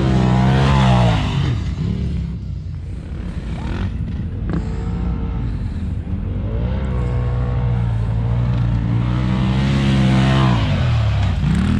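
Polaris RZR turbo side-by-side engine driven hard on sand: held at high revs, dropping sharply as the throttle is lifted about a second in, running lower and rougher for a few seconds, then pulled back up to a steady high pitch and dropping again near the end.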